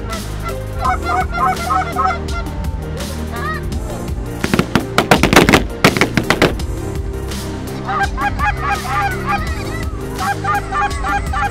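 Canada goose honks in quick clusters, with a dense, loud run of rapid calling in the middle, over a steady background music bed.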